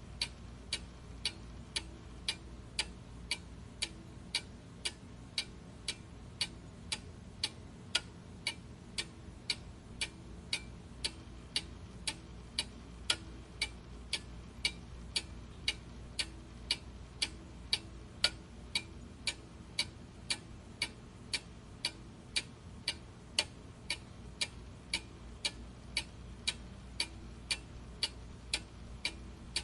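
Steady clock ticking, about two ticks a second, over a faint low hum.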